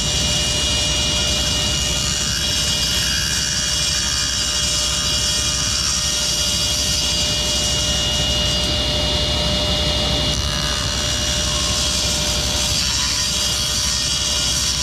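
Table saw running steadily with a steady whine. Its lowered blade is cutting a shallow groove around a wooden dowel that is rolled slowly across it to form a tenon.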